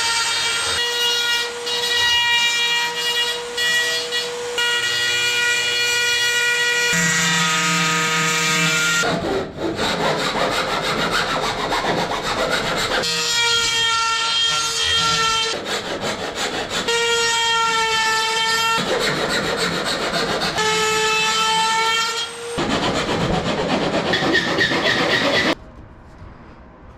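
Dremel rotary tool grinding into the aluminium wing spar to trim a slot. A high-pitched motor whine shifts in pitch as the load changes and alternates with stretches of harsher grinding as the bit bites the metal. It cuts off about a second before the end.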